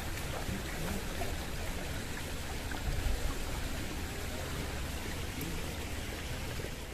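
Steady rushing hiss like running water, with a low rumble underneath.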